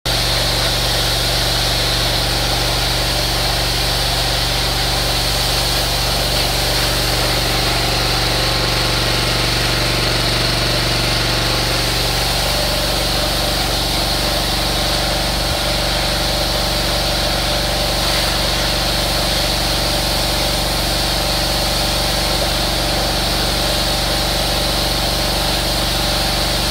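Gas-engine pressure washer running steadily: a constant engine hum with the hiss of the high-pressure water spray over it.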